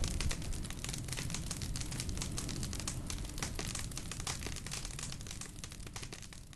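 Fire crackling sound effect: dense, irregular pops and crackles over a low rumble, fading out near the end.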